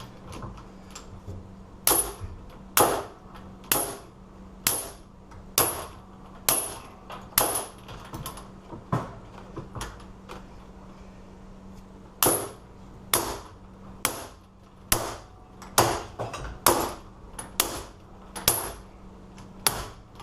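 Repeated hammer blows on an ABUS Rock 83/55 steel padlock, about one a second in two runs with a pause of a few seconds between. The blows are only denting the lock without breaking it open.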